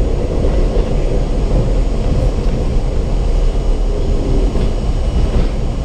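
Steady, loud low drone inside an R32 subway car while it stands at a station between announcements.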